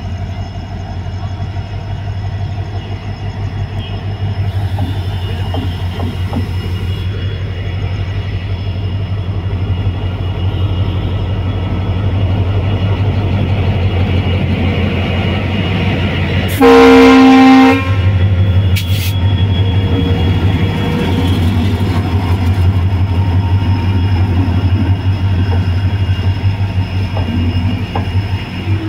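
EMD WDG4 diesel locomotive's two-stroke V16 engine working under load as it pulls a passenger train out, the drone slowly growing louder as it comes closer and passes. About halfway through, one locomotive horn blast lasting about a second, the loudest sound. After that the coaches roll past.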